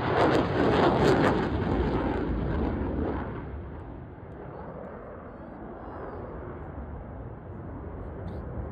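Two military jets flying past overhead: loud jet engine noise that fades about three seconds in, leaving a quieter distant rumble.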